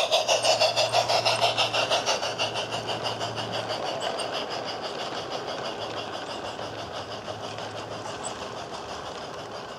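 Steam-locomotive exhaust chuffs from a MyLocoSound steam soundcard in a battery-powered garden-railway model saddle tank (a rebuilt LGB Otto). The chuffs keep a fast, even beat and fade steadily as the locomotive draws away, while the wagons roll past on the track.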